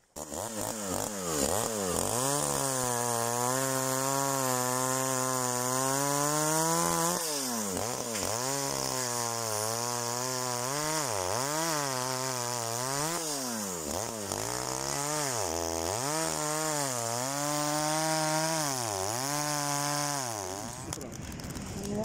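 Two-stroke chainsaw cutting a log, its engine held at a steady high pitch for several seconds, then repeatedly dropping and climbing again in engine speed. It stops about a second before the end.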